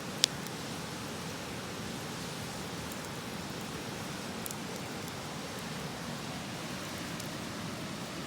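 Wood campfire crackling, with one sharp, loud pop just after the start and a few faint pops later, over the steady rush of a nearby river.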